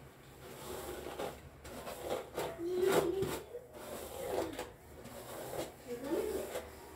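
A comb drawn through long, damp curly hair in a series of irregular strokes, a soft rasping rub, with an occasional light knock.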